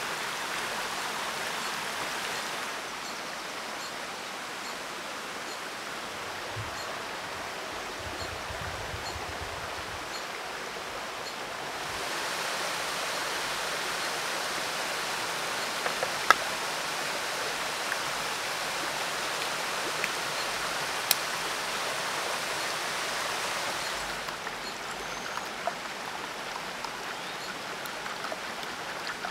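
Steady rushing of running stream water, its level shifting a couple of times, with a few sharp clicks or taps about halfway through.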